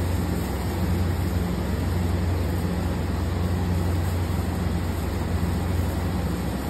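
Steady low mechanical hum with an even rushing noise underneath, unchanging throughout.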